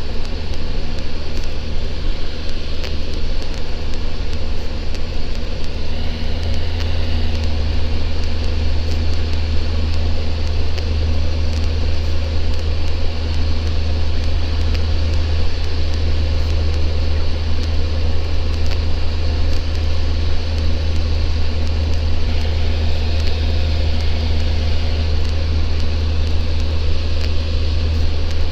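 Socata TB10 Tobago's four-cylinder Lycoming engine and propeller droning steadily in flight, heard inside the cockpit.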